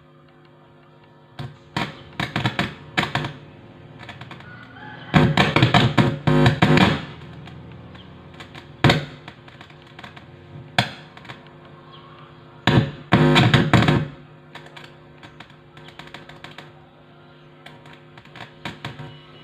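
Amplifier playing through a loudspeaker, a low steady hum with repeated bursts of loud buzzing and crackling as a finger touches the amplifier's audio input. The buzz means the amplifier is working.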